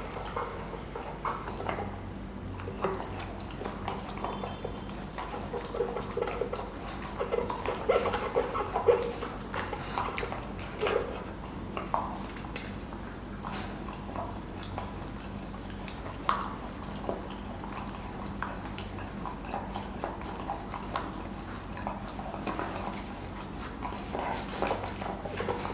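A Pomsky puppy licking and gnawing at a stuffed Kong rubber toy: irregular wet licks and chewing, with small clicks and knocks of the toy. The sounds come thickest a few seconds in.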